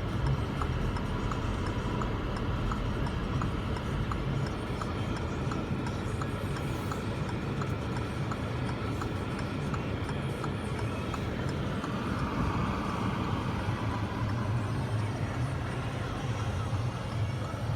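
Steady blizzard wind noise with a low rumble, and a light regular ticking about twice a second.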